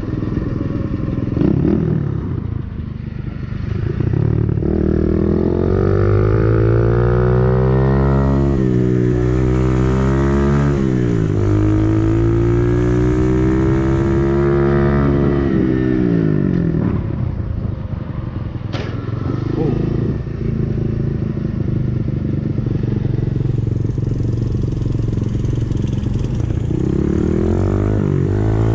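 125cc dirt bike engine running under way. Its pitch climbs and drops several times as the rider accelerates and eases off, settles to a steadier, lower note for a while, then climbs again near the end.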